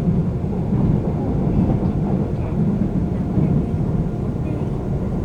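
Seoul subway train running, a steady low rumble with a slight wavering swell.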